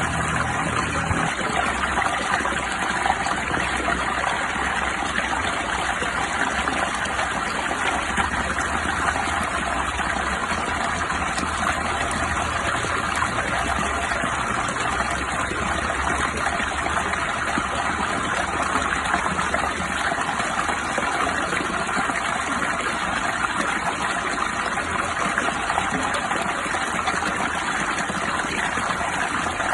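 Steady, even rush of water with no let-up. A low hum underneath stops about a second in.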